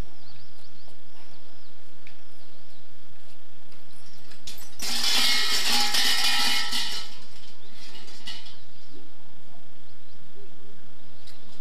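Large shrine bell (suzu) shaken by pulling its braided rope: a bright jangling rattle that starts about five seconds in and lasts about two seconds.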